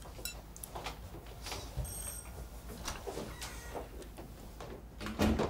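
Scattered soft clicks and knocks of a door being unlatched and opened, with a louder thump about five seconds in.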